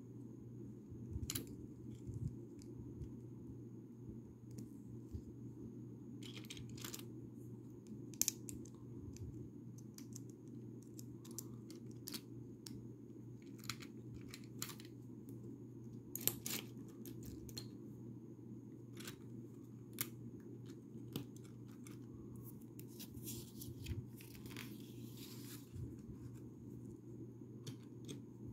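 Scattered small plastic clicks and taps of Lego pieces being handled, with a stretch of crinkling plastic near the end, over a steady low hum.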